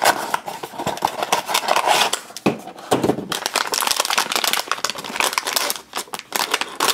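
Toy blind-box packaging being opened by hand, with irregular crinkling and tearing.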